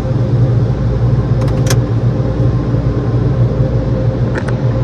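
Steady low rumble and hum heard from inside a car's cabin as the car creeps forward into an automatic car wash bay: the car's engine running at low speed together with the wash equipment. A couple of faint clicks are heard about a second and a half in and near the end.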